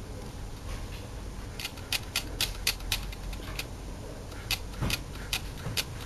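A run of sharp, irregular clicks, about three or four a second, starting about one and a half seconds in and pausing briefly in the middle, over a low steady rumble.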